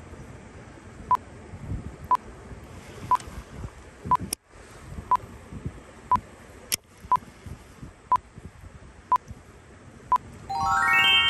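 Electronic beeps sounding once a second, ten in a row, then a quick rising run of tones near the end.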